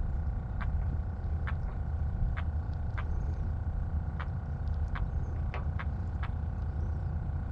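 Boat engine running steadily with a low rumble and a constant hum, with sharp irregular ticks every half second to a second.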